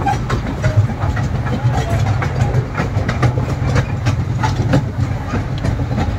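Amusement-park toy train running along its track, heard from aboard an open carriage: a steady low rumble with frequent irregular clicks and rattles from the wheels and carriages.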